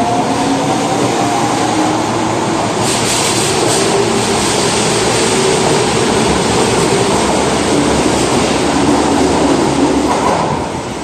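Osaka Metro Tanimachi Line subway train pulling out of the station: a rising motor whine at first, then steady wheel and running noise that falls away near the end.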